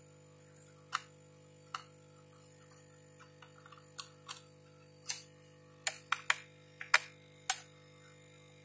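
About a dozen sharp, irregular clicks and taps from a small screwdriver working the screws out of a slap fingerprint scanner's casing, over a faint steady hum.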